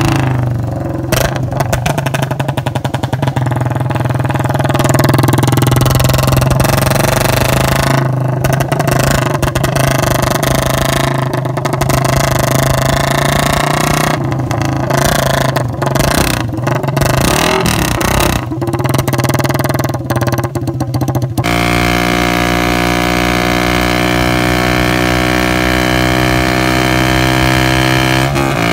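Suzuki Raider 150 Fi's single-cylinder four-stroke engine through an open-pipe exhaust with a Vmax elbow, ridden at speed through the gears. For most of the time the note breaks up in many short drops. About two-thirds of the way in it changes suddenly to a smooth, slowly rising note as the bike pulls in top gear.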